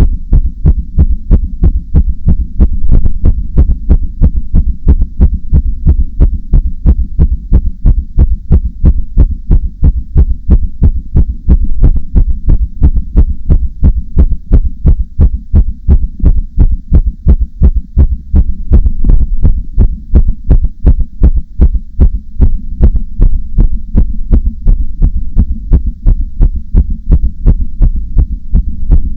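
Human heartbeat, loud and low: a steady, even run of beats with no break or change in pace.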